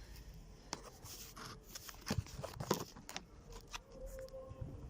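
Scattered metal clicks, knocks and scrapes of hand tools working the rear wheel hub, as seized hub mounting bolts are undone with a 12 mm socket wrench.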